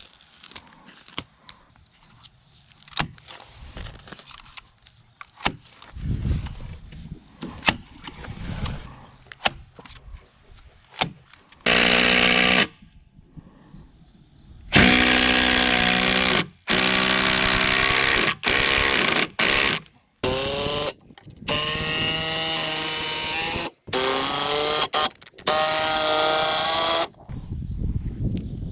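Scattered knocks and taps of handling wood, then a power drill driving construction screws into timber in a run of loud bursts a second or two each. In several bursts the motor whine climbs in pitch.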